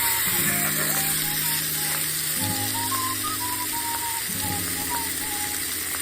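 Background music, a whistle-like melody over held bass notes, laid over a steady crackling hiss from the fire that starts abruptly at the beginning.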